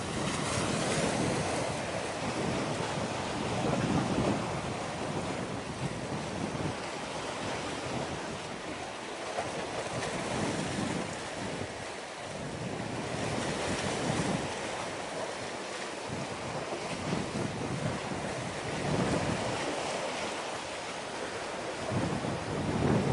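Wind buffeting the microphone in uneven gusts over a steady rush of sea waves; no distinct ship engine sound stands out.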